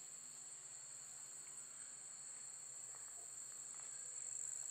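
A steady, high-pitched chorus of insects, with no break or change.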